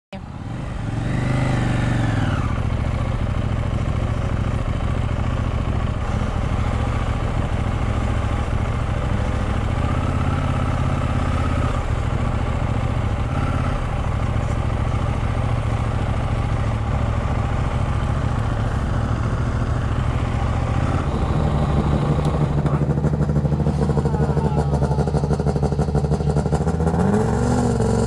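Motorcycle engine running steadily under way, its pitch bending up briefly about a second in and rising again with the revs near the end.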